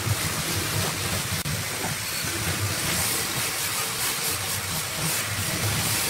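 MK361A hollow-chisel mortising machine running steadily, its chisel and auger cutting a mortise into a wooden workpiece.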